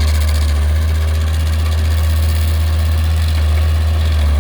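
Stump grinder running steadily as its cutting wheel grinds up a tree stump and its roots, a constant loud low engine drone.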